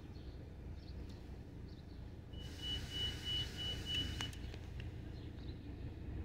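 Low, steady rumble of a car heard from inside its cabin while it sits at a stop and then starts to roll. About two and a half seconds in, a hiss and a high, broken beeping tone rise over it for a couple of seconds, with a sharp click near the end of the beeping.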